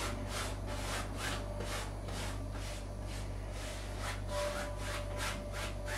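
Wide paintbrush loaded with white oil paint being scrubbed back and forth across a canvas: a run of quick scratchy rubbing strokes, about two to three a second.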